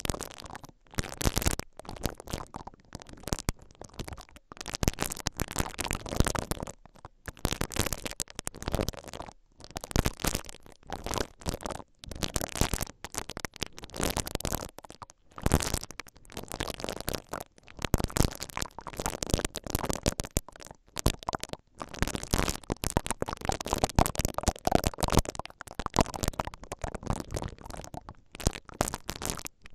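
Silicone bristle ear-pick brushes rubbing and twisting against the mesh grilles of a stereo microphone's two capsules. Close, crackly scratching comes in uneven strokes with short pauses between them.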